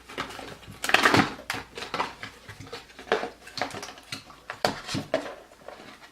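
Packaging being wrestled open by hand: irregular crackles, clicks and rattles, loudest in a cluster about a second in.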